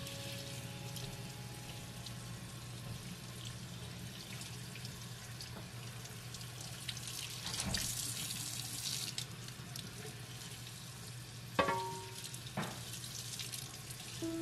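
Kitchen faucet water running and splashing onto a metal stove panel being rinsed in a sink. Two sharp knocks come about a second apart, near the end.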